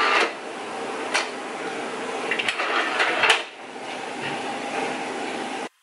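A 2002 eMac's tray-loading optical drive being opened to take a disc: a few sharp clicks and knocks of the tray and disc being handled, over a steady hiss. The sound cuts off suddenly near the end.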